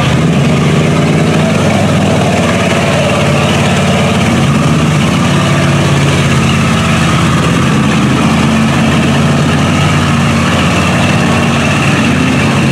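Engine of a lifted Chevrolet crew-cab pickup on giant mud tyres running at low, steady revs as the truck crawls through muddy water.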